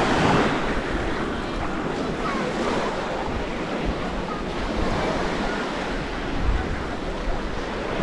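Small waves breaking and washing up the sand at the shoreline, a steady rush of surf, with wind buffeting the microphone and faint voices of people on the beach.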